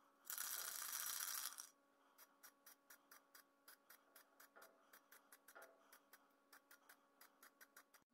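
Aerosol can of graphite lacquer spraying in one hiss of about a second and a half, followed by a run of quick irregular light clicks.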